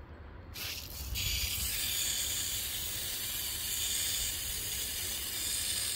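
Garden-hose watering wand switched on about a second in, its shower head spraying water onto a patch of lawn with a steady hiss.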